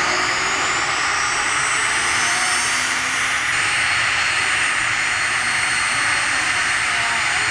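CH-47J Chinook's turbine engines starting: a high whine rising in pitch over a steady loud rush, which levels off into a steady whine about halfway through.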